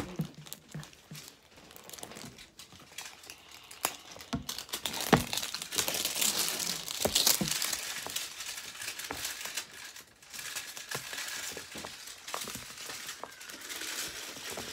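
Toy packaging crinkling and rustling as it is handled, loudest in the middle stretch, with scattered knocks and taps from the hard plastic capsule being turned over.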